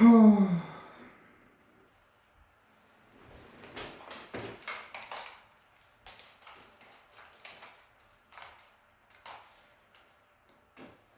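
A brief vocal sound falling in pitch at the very start, then a run of small clicks and rustles of hands handling small plastic items and packaging, busiest a few seconds in and then sparser.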